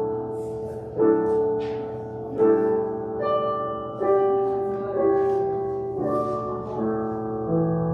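Slow piano music: chords struck about every one to two seconds, each left to ring out.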